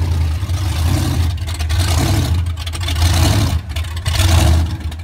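Monster truck engine revving in short surges about once a second, with a deep low drone between revs.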